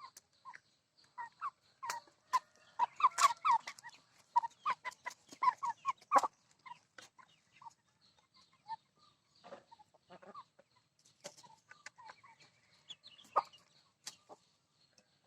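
Chickens clucking in short repeated notes, mixed with sharp clicks. The sound is busiest in the first half and thins out later.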